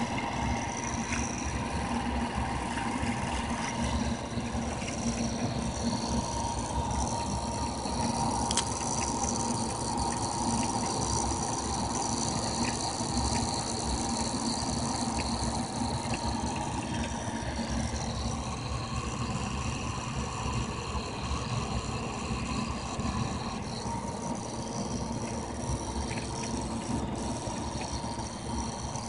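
Homemade pulse motor running steadily on the bench: a continuous mechanical whir with a steady hum and a higher whine, the whine changing about 18 seconds in.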